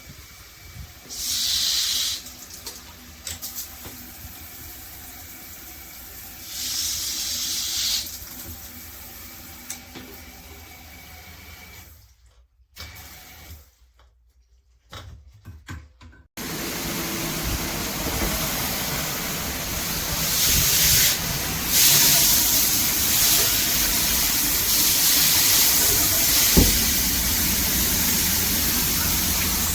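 Handheld shower head spraying water: two short bursts early on, then after a brief near-silent gap the full spray comes on and runs steadily as a loud hiss.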